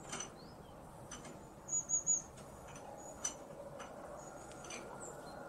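A CR3032 lithium coin cell crackling and popping as it is heated on a soldering iron tip. It gives irregular sharp clicks, the loudest a quick run of three about two seconds in, with another clear pop a little after three seconds.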